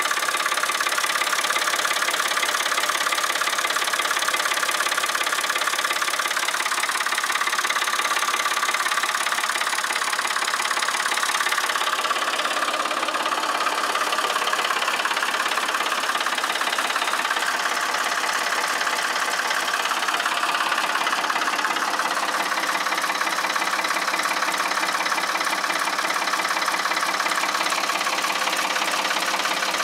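Old farm tractor engine idling steadily, freshly restarted after sitting about a month.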